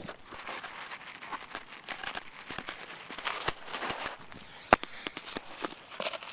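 A person scrambling up a steep climb: irregular scuffs, crunches and rustles of shoes, hands and clothing against the ground, with hard breathing, and one sharp knock nearly five seconds in.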